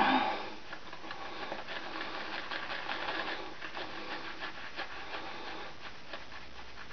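Boar-bristle shaving brush scrubbing lather onto a stubbled cheek: a steady, fast, bristly rubbing, after a brief louder noise at the very start.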